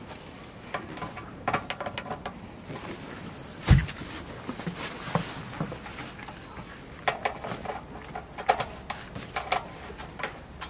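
A series of light knocks and clicks, with one louder dull thump about four seconds in.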